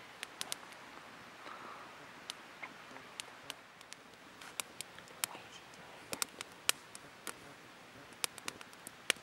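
Campfire crackling: scattered, irregular sharp pops and snaps over a faint hiss.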